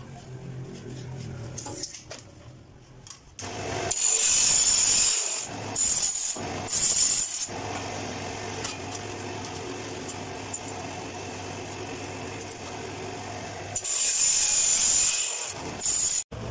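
Metal chop saw cutting through a stainless steel round pipe. It starts about three seconds in and grinds loudest at first and again near the end, with steadier running between, then cuts off abruptly just before the end.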